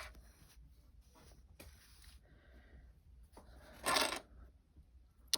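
Plastic Lego pieces being handled: faint rustling and clicking, a louder short rattle about four seconds in and a sharp click near the end.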